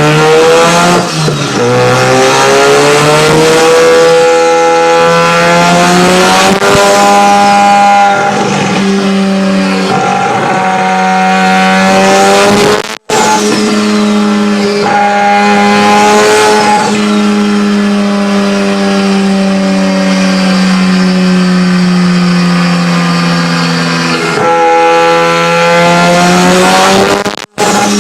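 Tuned car engine running hard at high revs, the pitch held high for long stretches with short dips and climbs as the throttle is lifted and reapplied. The sound breaks off abruptly twice, about 13 seconds in and near the end, where one clip gives way to the next.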